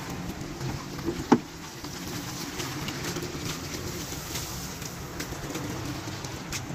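Pickup truck engine running steadily at low speed while towing a boat trailer, with one short, sharp sound about a second and a half in.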